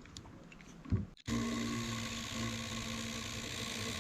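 Hyper Tough 20-volt cordless impact driver running steadily in reverse on a lag bolt driven into a dense log, starting about a second in after a short knock. The bolt does not back out of the wood.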